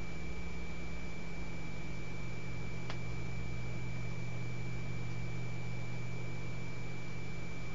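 Steady electrical hum and hiss with a thin, constant high-pitched tone, and one faint click about three seconds in.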